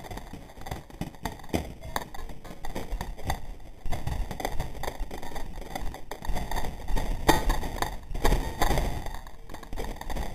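Irregular dull thumps and light taps, with a few louder thumps about two-thirds of the way in.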